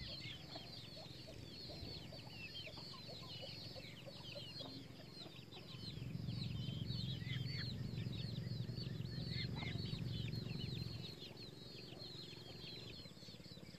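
Chickens clucking low under a dense stream of high, quick chirps and peeps. A low rumble swells in about six seconds in and fades out near eleven seconds.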